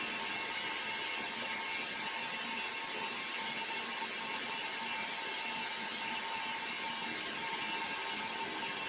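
A machine tool running steadily, giving an even whir with a constant high tone and no change.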